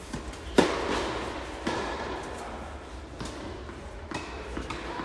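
Tennis ball struck hard by a racket about half a second in, then another hit about a second later and a few fainter knocks of ball on racket or court.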